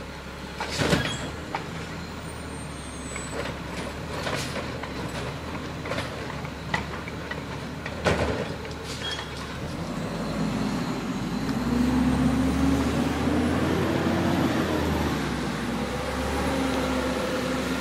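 Garbage truck working the street: several sharp clanks and hisses in the first eight seconds, then the engine revs up about ten seconds in and runs at a higher, steady pitch for the rest of the time.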